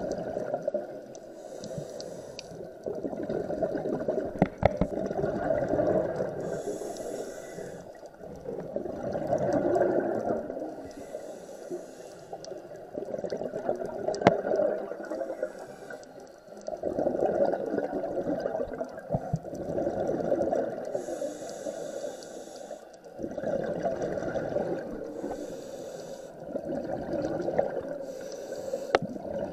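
Scuba diver breathing underwater through a regulator: a short hiss on each inhale, then a longer bubbling rumble of exhaled air, repeating every few seconds, with a few sharp clicks.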